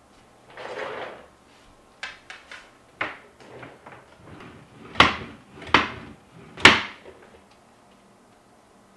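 Desk furniture being handled: a brief scrape as a chair is pulled up to a desk, a few light clicks, then three sharp wooden knocks under a second apart, like a desk drawer being worked.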